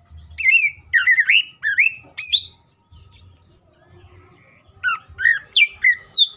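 Caged male leafbird (cucak ijo) singing loud runs of quick swooping, sliding whistled notes, in two bursts: one near the start and another from about five seconds in.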